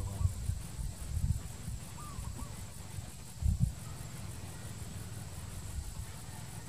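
Dusk outdoor ambience: a steady high insect drone, with low rumbles on the microphone that are loudest about three and a half seconds in, and a couple of faint short chirps.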